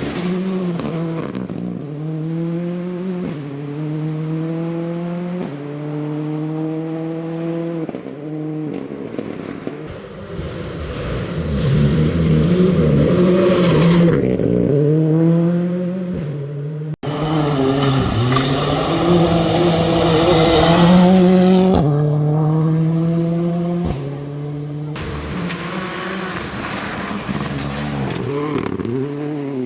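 Proton IRIZ R5 rally car's 1.6-litre turbocharged four-cylinder driven hard on a gravel stage: revs climb sharply and drop over and over as it changes up through the gears. There are louder stretches with a rushing noise over the top, and a sudden break about 17 seconds in.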